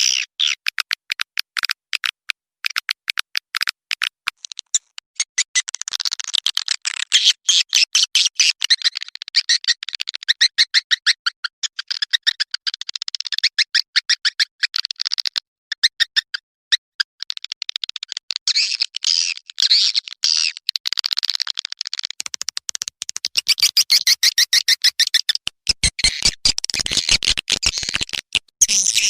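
Recorded swiftlet calls played as a swiftlet-house lure sound: rapid runs of high chirps and clicks, repeated in quick bursts with short breaks between them.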